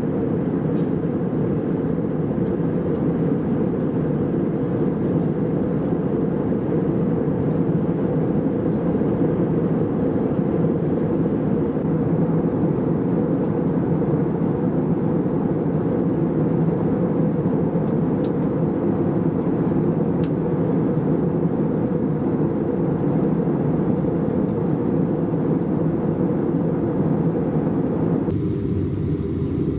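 Steady cabin noise of an Airbus A319 in flight: a constant deep roar of airflow and its CFM56 turbofan engines. The hissier upper part drops away near the end.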